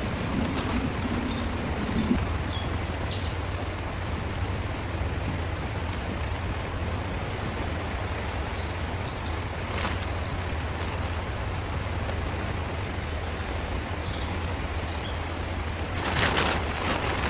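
Steady rain falling, an even hiss over a low rumble, with a louder burst of noise about a second before the end.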